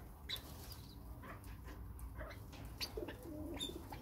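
A flock of young chukar partridges calling softly, with scattered short ticks and a few thin high chirps, and low cooing clucks near the end.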